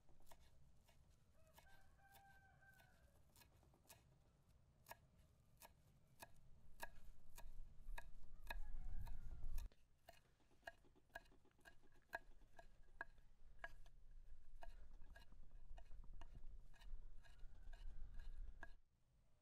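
Faint, irregular sharp clicks and taps, several a second at times, from cooking work at an outdoor wood stove. A rooster crows about two seconds in, with shorter calls later, and a low rumble swells briefly near the middle.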